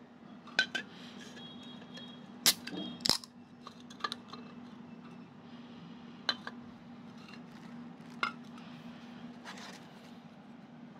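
About nine sharp clinks and knocks, like hard objects being handled and set down, scattered irregularly, with the two loudest close together a little before the middle, over a steady low hum.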